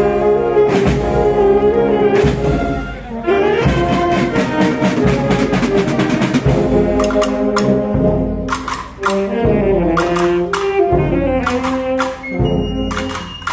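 Municipal wind band playing live: brass (trumpets and trombones) carries the melody over drum and cymbal strikes.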